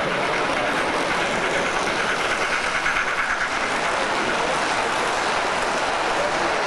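Model train running past close by, its wheels rolling steadily along the track.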